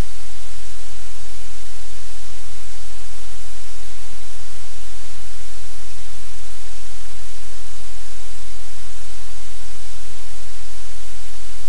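Loud, steady static hiss with a low electrical hum, unchanging throughout: noise on the audio feed that covers any sound in the room.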